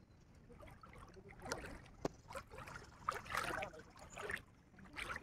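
Water splashing in irregular bursts in a shallow river, as people wade and handle a fishing net, with a sharp knock about two seconds in.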